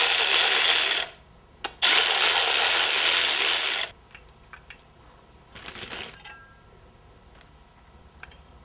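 Two bursts of an air-powered tool: the first about a second long, the second about two seconds, each starting and stopping abruptly with a hiss of air. A few light metallic clicks follow.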